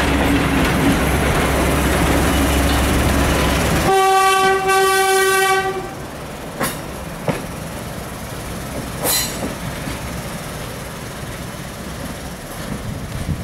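Brill railcar's engine running close by, then a single horn blast of about two seconds. The railcar then pulls away more quietly, with a few sharp clicks from its wheels on the track.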